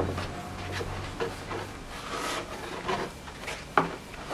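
Hands rubbing and scraping over materials on a wooden work surface, with scattered light clicks and a sharper click near the end.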